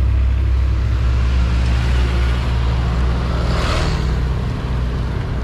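Diesel engine of a FAW JH6 heavy tractor unit running slowly under a 75-ton excavator load, a steady low drone. A brief hiss swells and fades about three and a half seconds in.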